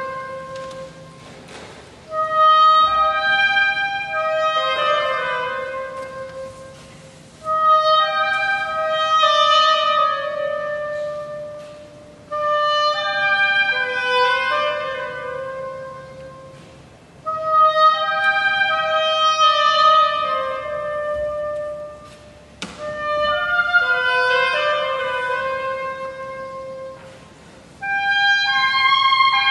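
Solo woodwind playing a slow, unaccompanied melody in phrases of about five seconds, each separated by a short pause.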